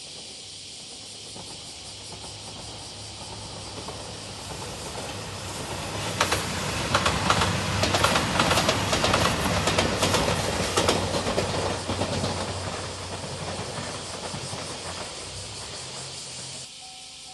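A JR Shikoku 2700-series diesel express train passes close by. The sound builds, with a low engine hum under it, and the wheels clatter over the rail joints most loudly in the middle. It then fades away and cuts off suddenly near the end.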